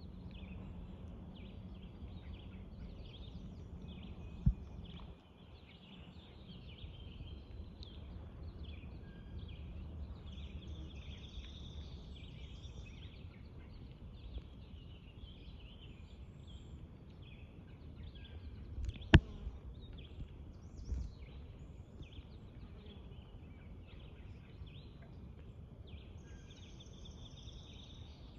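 Birds chirping and calling on and off over a low wash of outdoor noise, with a sharp knock about four seconds in and a louder one near the middle.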